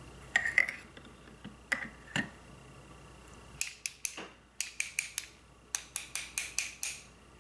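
A paintbrush clinks in a glass water jar, then two paintbrushes are tapped together over and over in quick runs of sharp taps, shaking water droplets off the bristles to splatter the paper.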